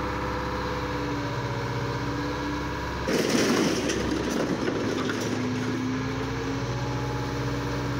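Scrap-handling excavator with a grapple running, its engine and hydraulics giving a steady hum that shifts in pitch a few times. About three seconds in comes a loud crash and rattle of sheet-metal scrap as the grapple drops a piece of car body onto the pile.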